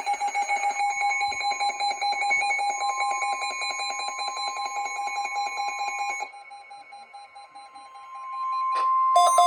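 NOAA Weather Radio's steady 1050 Hz warning alarm tone, the signal that a warning broadcast follows, starting about a second in. Under it a rapid electronic alarm beep pulses until about six seconds in, then stops; a click and another sound come in near the end.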